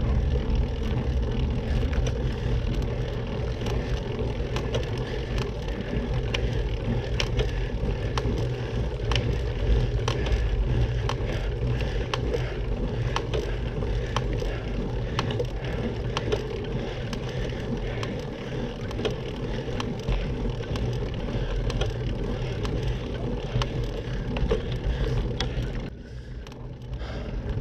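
Rolling road noise and wind on the microphone from a bicycle moving along a paved road, with scattered sharp ticks and clicks throughout. It quietens briefly near the end.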